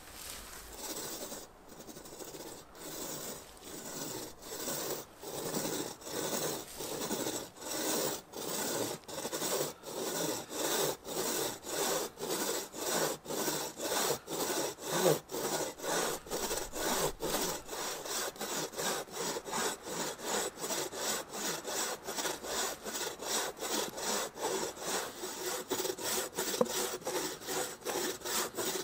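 Bucksaw cutting through a fallen conifer log by hand: back-and-forth saw strokes, slow for the first few seconds, then settling into a steady rhythm of about two strokes a second.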